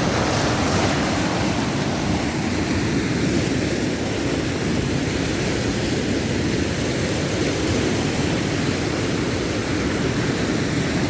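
Roaring rush of fast floodwater pouring through in a powerful torrent, a loud, steady churning roar.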